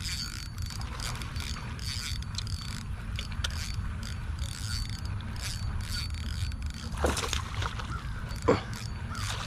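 Fishing reel being cranked steadily to bring in a hooked fish, its gears giving a continuous fine clicking.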